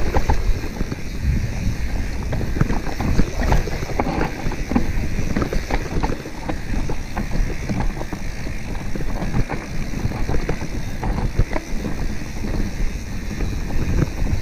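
Mountain bike riding fast down a dry dirt singletrack: tyres running over dirt and stones, with many irregular clicks and rattles from the bike, over a steady rumble of wind on the microphone.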